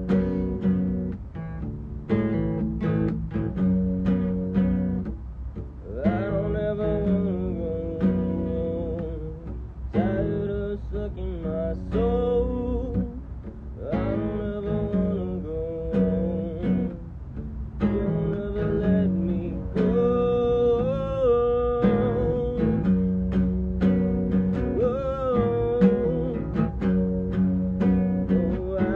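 Acoustic guitar picked in a slow, sustained chord pattern. From about six seconds in, a voice sings along over it in phrases.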